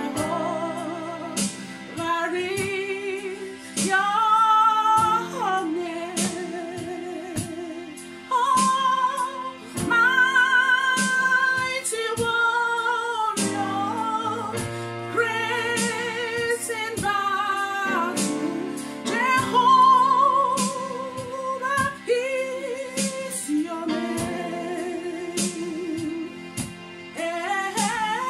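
A woman singing a gospel worship song with a wavering vibrato, over backing music with held low chords and a steady drum beat.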